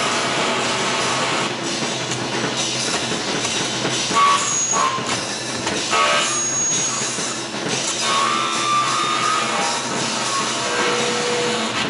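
Live harsh noise music: a loud, dense wall of distorted noise with short held tones cutting in and out over it.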